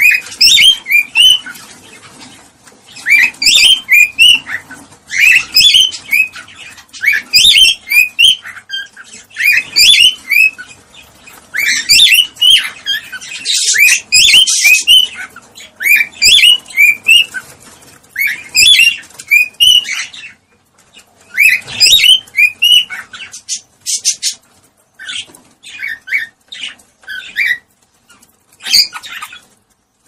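Cockatiels chirping in quick groups of short up-and-down chirps, each group about a second long with brief pauses between. These are mating calls, the kind played to stimulate cockatiels to breed.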